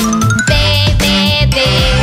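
Children's song music, opening with a quick rising run of notes.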